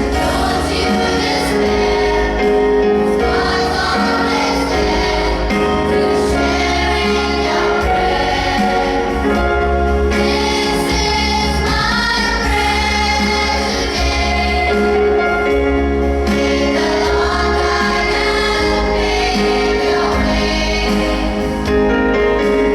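A choir singing a prayer song with instrumental accompaniment: several voices carrying a melody over sustained held chords and a steady bass.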